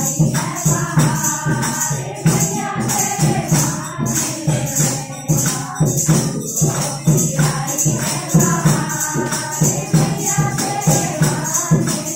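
A group of women singing a Hindu devotional bhajan to the Mother Goddess in unison, with hand clapping and jingling percussion keeping a steady beat.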